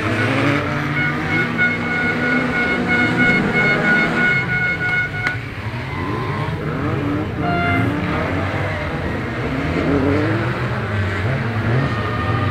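Race car engines on a dirt circuit, several cars revving hard and shifting gear, their pitch climbing and dropping again and again. A steady high tone sounds from about one to five seconds in.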